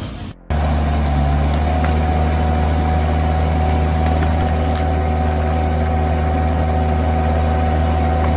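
A log splitter's engine and hydraulics running with a steady, even drone that cuts in about half a second in, with a few faint ticks.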